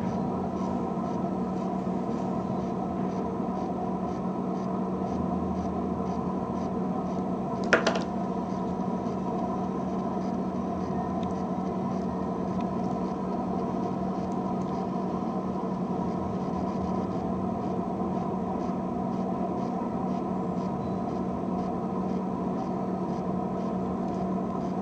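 Steady background hum made of several fixed tones at an even level, with a single sharp click about eight seconds in.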